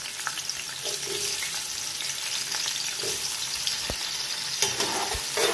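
Sliced onions sizzling in hot oil, just added to the pot to fry: a steady frying hiss with a few faint clicks.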